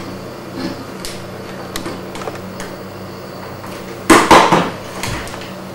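A stapler being pressed down through folded sheets of paper: faint clicks and handling at first, then two loud clunks in quick succession about four seconds in.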